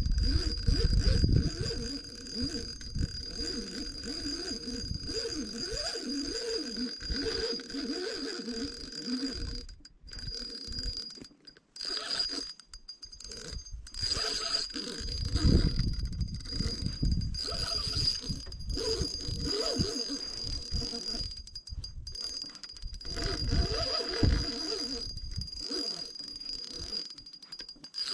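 Spinning reel being cranked under the load of a hooked fish, with wind rumbling on the microphone.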